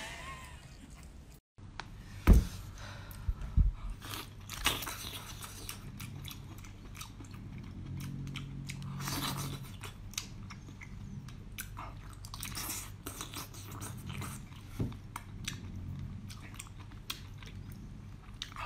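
Close-miked chewing and biting of braised octopus: wet smacking and squelching mouth sounds with irregular sharp clicks, the loudest a couple of seconds in.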